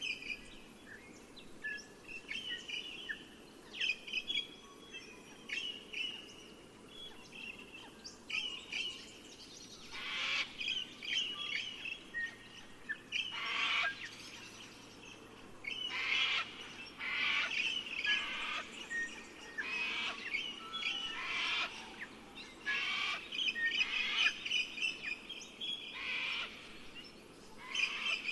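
Several birds chirping and trilling, joined from about a third of the way in by short, coarser calls repeated every second or two, over a steady low background hiss.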